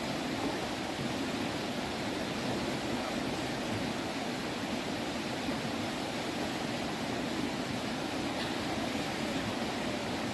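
Steady rush of fast-flowing river water pouring over a standing surf wave.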